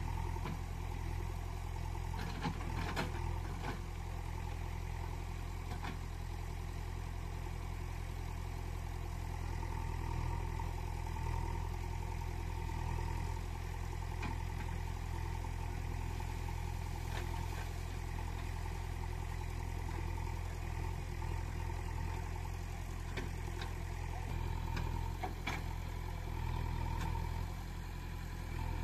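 Engine idling steadily with a low, unchanging hum, with a few light clicks scattered through it.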